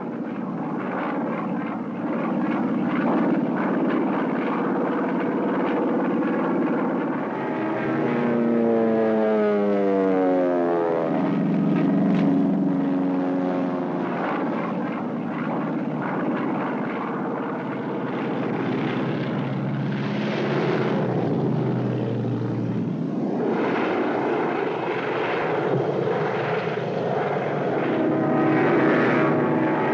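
Airplane engine droning steadily. Its pitch glides lower about eight to eleven seconds in and shifts again near the end.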